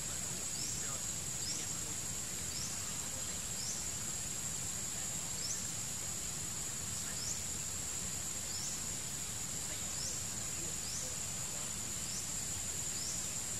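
Forest ambience: a steady high-pitched insect drone, with short rising chirps about once a second and a low rumble underneath.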